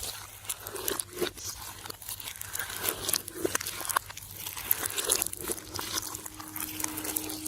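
Slime being handled and squished, making scattered small crackling clicks and crinkles.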